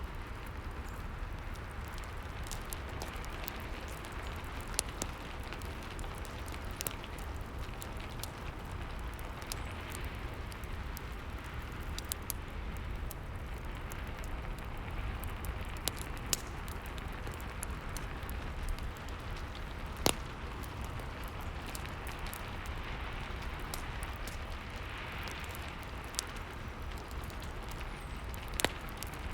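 Steady rain with a wood fire crackling over it: a constant hiss of rain, broken by scattered sharp pops and snaps from the fire, the loudest about two-thirds of the way through.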